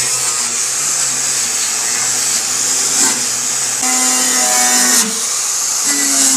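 Handheld electric power tool working rusty steel body panel, a loud steady hiss over a motor hum whose pitch sags twice, about the middle and near the end, as the tool bears down.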